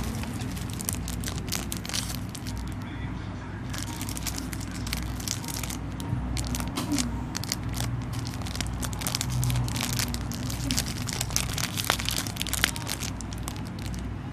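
Plastic packaging crinkling and crackling as it is handled and opened, many quick irregular crackles.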